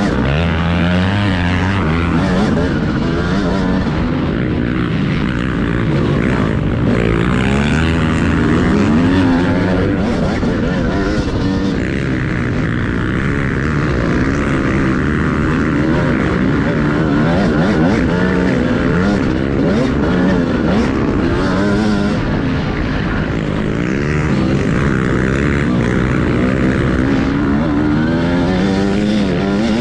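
TM Racing 250 motocross bike's engine, heard from on the bike, revving up and falling back again and again as the rider accelerates and shifts around the track.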